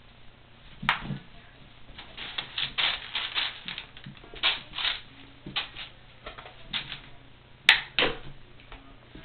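Kittens at play with a wand toy: paws and claws making scattered scratchy taps, with a quick run of them in the middle and a few sharp clicks, two close together near the end.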